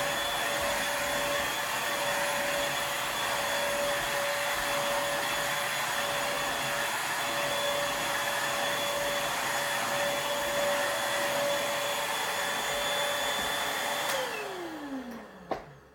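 Black & Decker vacuum cleaner running steadily with a motor whine. It is switched off about 14 seconds in, and the whine falls in pitch as the motor spins down. A single click follows just before the end.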